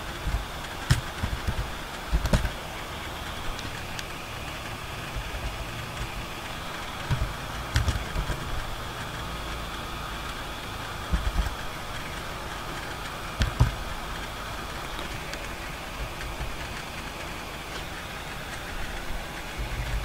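A steady mechanical hum, like a motor or fan running, with a handful of scattered short knocks and clicks.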